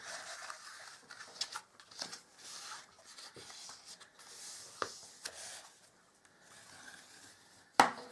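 Cardstock being folded and creased by hand along its score lines into a concertina: soft paper rustles and scrapes with small clicks, and one sharp click near the end, the loudest sound.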